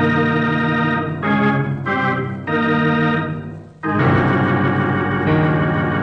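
Organ music bridge between scenes: a series of held chords, changing about every second, with a short dip in loudness just before the fourth second.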